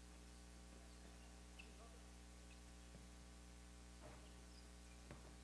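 Near silence in a gym: a steady low electrical hum, with a few faint squeaks and a soft knock from players moving on the hardwood court.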